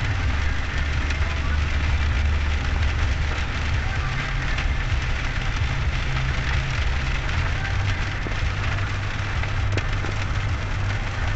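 Rain pattering and ticking on a car's windshield and roof, over the steady low rumble of the car driving on a wet road, heard from inside the cabin.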